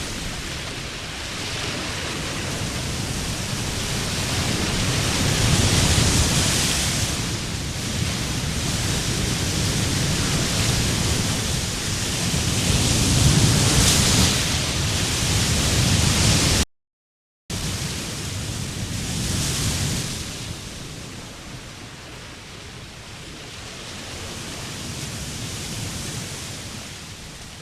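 Rushing storm noise of wind, rain or floodwater, swelling and easing every few seconds. It breaks off into a short dead silence about seventeen seconds in, then goes on more quietly.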